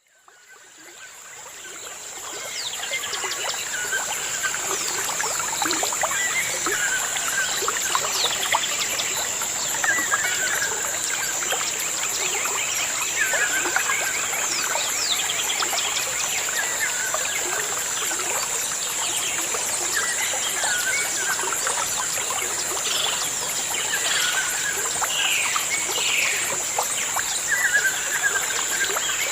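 Small birds chirping and calling over one another, with the same short hooked call repeating every second or two, over a steady high thin tone. The sound fades in over the first couple of seconds.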